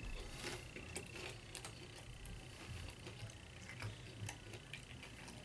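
A person chewing a mouthful of nachos close to the microphone: soft irregular clicks, wet mouth sounds and faint crackles of tortilla chips.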